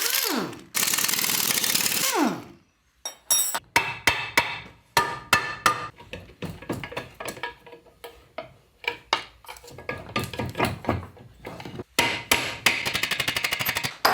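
Tools at work on a Land Rover Series gearbox during teardown. Two seconds of steady whirring tool noise falling in pitch, then a run of sharp metal knocks and taps, then fast, even clicking near the end.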